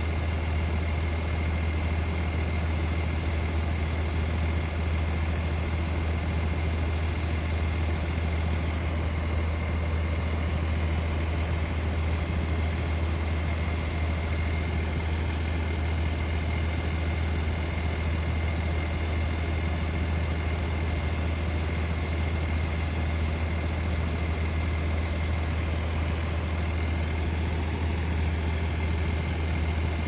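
Heavy diesel engines of road-construction machinery idling steadily: a deep, even hum with a thin, steady high whine over it.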